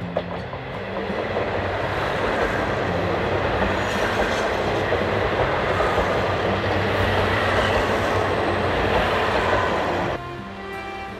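KiHa 56 series diesel railcars passing close by, their diesel engines running and wheels rolling on the rails, the noise swelling over the first couple of seconds and then holding steady. About ten seconds in it cuts off abruptly and background music takes over.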